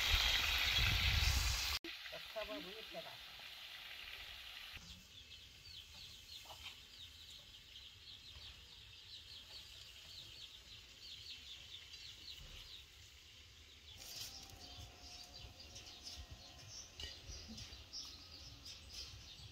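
Meat sizzling loudly as it fries in a large shallow pan over a wood fire, cut off abruptly about two seconds in. Then quiet outdoor background with a bird chirping in quick repeated notes.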